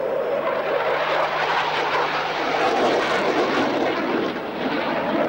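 Jet engine noise from a canard-delta fighter jet in display flight overhead: a steady, hissing jet sound that swells slightly around the middle and eases a little toward the end.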